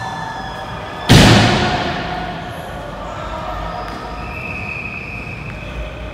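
A single sudden loud bang about a second in, ringing out with a long echo through a large hard-surfaced hall.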